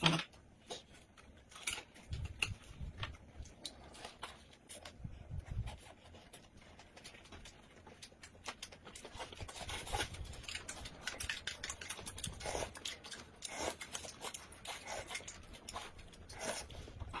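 Close-up eating sounds: irregular crunches, clicks and rustles of two people biting and chewing pancake rolls, with chopsticks tapping on the plates and pancake.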